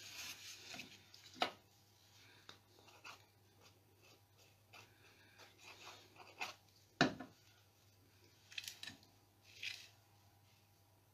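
Cardstock layers being handled, slid and pressed down on a cutting mat: soft paper rustling broken by a few sharp taps, the loudest about seven seconds in.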